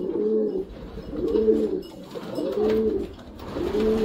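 A racing pigeon cock cooing to a hen in a courtship coo, four rolling coos about a second apart, each rising and falling in pitch.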